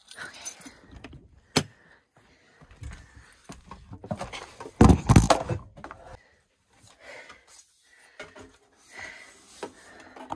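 Clicks, knocks and clattering as someone hurries into a truck camper through its door, with the loudest thump about five seconds in.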